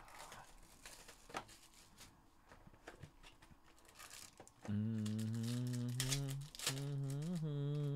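Rustling, crinkling and light tapping as a card box and the wrapper of its contents are handled and torn open. From about halfway, a man hums low held notes with short breaks, louder than the rustling.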